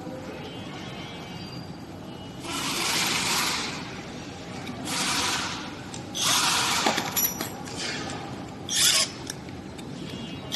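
Handling noises as a scooter's wiring harness and connectors are worked out of its frame: several rustling, scraping bursts of about a second each, with a few sharp clicks about seven seconds in.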